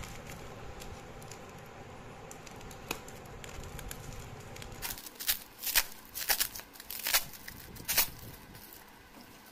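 Plastic packing wrap being handled and torn open by hand: soft rustling at first, then a run of loud crinkles and crackles from about halfway through.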